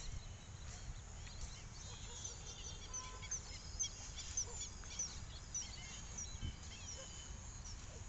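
Many wild birds chirping and calling, a steady scatter of short, high chirps with a few longer whistled notes about three seconds in, over a low, steady rumble.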